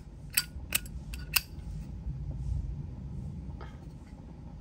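Zippo lighter lid being flicked open and snapped shut: four sharp metallic clicks in the first second and a half, one fainter click later, over a low steady rumble. The lid's click is not yet tuned, which the seller says he will adjust.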